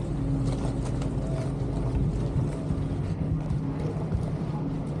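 Vaporetto water bus engine running with a steady low hum as the boat pulls away from a stop. Water rushes along the hull and wind buffets the microphone.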